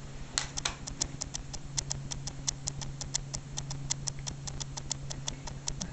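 Soft clicks of a newborn hearing-screening stimulus played through ear cups, in an even rhythm of about six a second, over a steady low hum.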